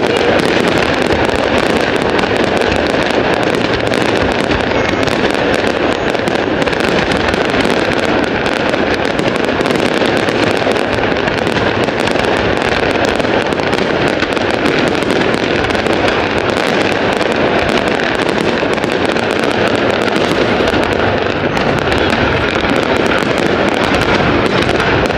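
Fireworks display going off in a steady, dense run of bangs with no pause.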